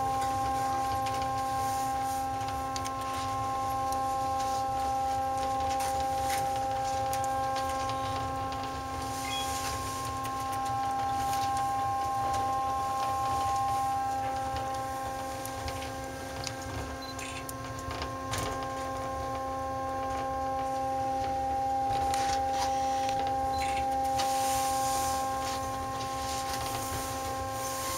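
The Montreal Tower's inclined tram cabin climbing: a steady electric whine of several pitches over a low rumble, with a few faint clicks.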